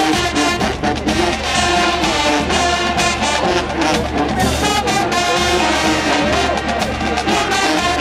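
Marching band playing live: a brass section with sousaphones, horns and trumpets over a drumline of snares, bass drums and cymbals, with steady drum strokes throughout.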